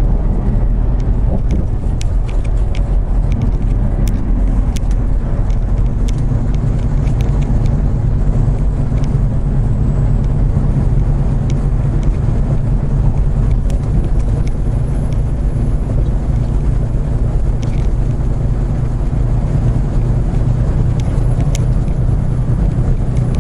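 Semi-truck's diesel engine and tyres heard inside the cab while cruising on the highway: a steady low drone.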